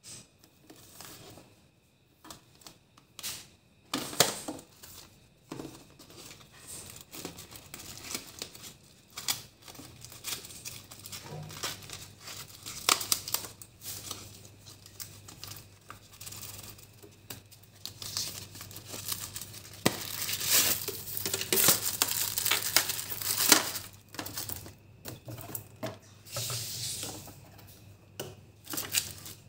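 Kitchen handling sounds: irregular crinkling and tearing rustles with sharp clicks and knocks, busiest about two-thirds of the way through. A low steady hum comes in about a third of the way through.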